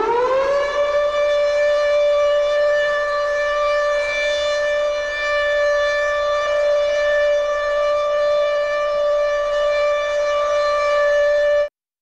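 A siren finishing a rising wind-up, then holding one steady, loud tone that cuts off suddenly near the end.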